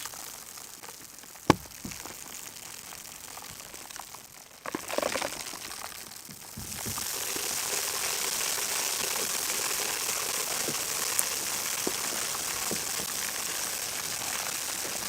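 A sharp knock about a second and a half in, then a steady hiss that starts about seven seconds in and keeps on.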